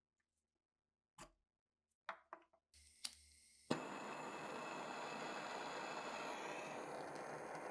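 A few small metal clicks from rusty springs and trigger parts being handled. Then a gas torch: a faint hiss of gas, a click, and a pop as the flame lights about three and a half seconds in, followed by the flame's steady hiss.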